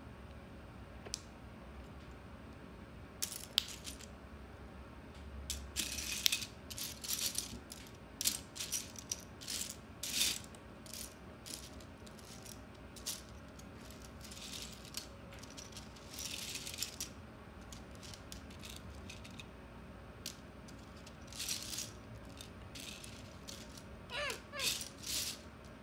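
Loose plastic Lego bricks rattling and clicking in short, irregular bursts as they are handled and rummaged through.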